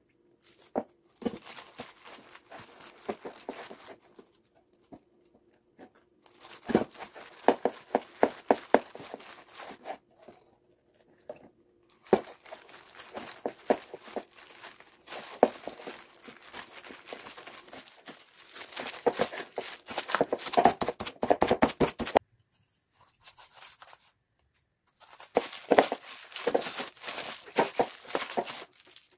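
A bare hand mixing and kneading flour with curry sauce into a dough in a clear plastic bowl: crackling, rustling strokes, quickening into rapid clicks near the middle, in several stretches broken by short silences.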